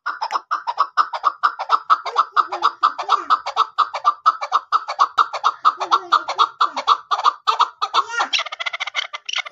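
A chukar partridge calling: a fast, even run of clucking chuk notes, about five a second, which shift to a different, higher-pitched pattern near the end.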